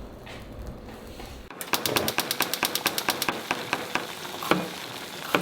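A quick run of even clicks, about nine a second, starting abruptly about a second and a half in, then scattered sharp pops and crackles of olive oil heating in a frying pan.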